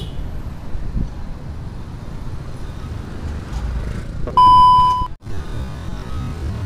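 Road and traffic noise from riding a bicycle along a street, broken about four seconds in by a loud, steady censor bleep lasting under a second that masks a swear word and cuts off abruptly.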